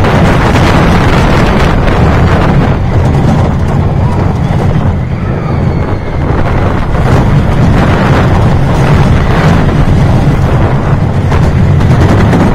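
Loud wind buffeting a rider-worn camera microphone over the low rumble of a steel family roller coaster train running down its drop and through its hills and turns.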